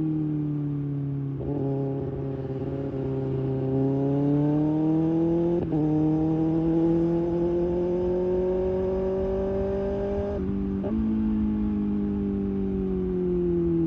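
Kawasaki Ninja ZX-6R inline-four engine with an IXIL slip-on exhaust, its note slowly rising and falling, with a few abrupt jumps in pitch: about a second and a half in, near the middle, and twice about ten to eleven seconds in.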